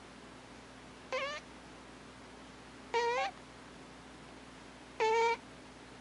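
A sleeping cat snoring: three short, high, squeaky whistle-like sounds, about two seconds apart.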